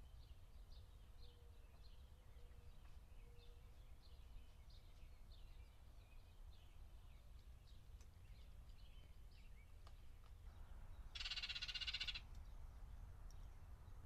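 A faint chorus of frogs calling at dusk, many short high peeps repeating. Near the end a louder buzzy trill lasts about a second.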